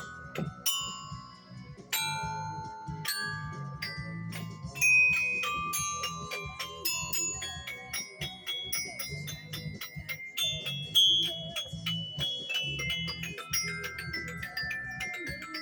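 Mallet percussion instrument struck in a jam: single ringing high notes at first, then quicker runs, and notes stepping downward near the end.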